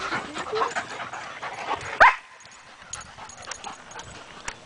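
Dogs playing, with short whines and yips, then one loud, sharp bark that falls in pitch about two seconds in.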